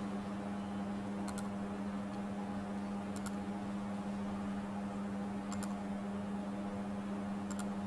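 Steady low hum with faint even overtones, as from a fan or mains-powered equipment, broken by four faint short clicks spaced about two seconds apart.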